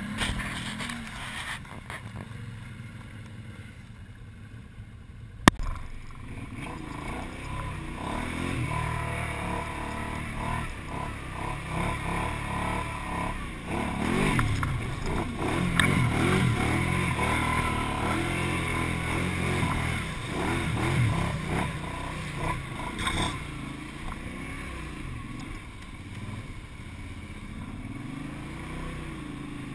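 All-terrain vehicle (quad bike) engine running and revving, its pitch repeatedly rising and falling with the throttle while driving through mud. A sharp click comes about five seconds in.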